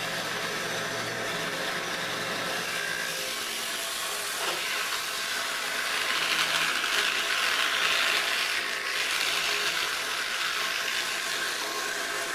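Homemade dowel-rounding machine running, its 1 hp high-speed electric motor and belt-driven cutter humming steadily. From about five to ten seconds in, a louder rasping cut as a 13 mm hardwood stick is pushed through the cutter and rounded.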